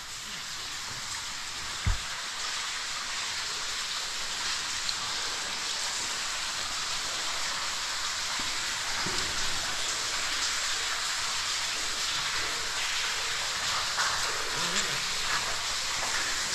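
Water falling down a vertical cave pit, splashing and pattering steadily on the rock like heavy rain, with one sharp knock about two seconds in.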